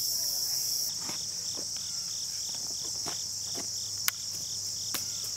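Crickets and other field insects trilling steadily, with a chirp repeating a little more than twice a second from about a second in. Two short sharp clicks about four and five seconds in.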